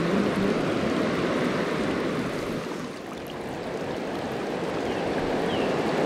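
Mountain stream flowing over a stony riverbed: a steady rush of water that dips a little about halfway through and builds again. A few faint short falling chirps near the end.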